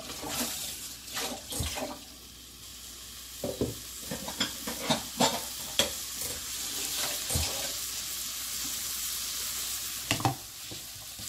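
Seasoned dried pumpkin strips sizzling in a nonstick wok over a high gas flame, with scattered knocks and scrapes of a wooden spatula stirring them against the pan. The sizzle builds and grows steadier after a few seconds.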